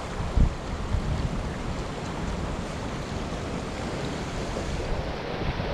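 Creek water rushing steadily, with wind buffeting the microphone in low gusts and a low thump about half a second in.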